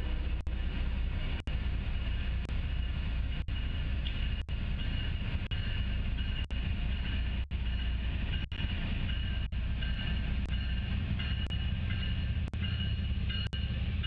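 Train passing with a steady rolling rumble, the sound cutting out briefly about once a second.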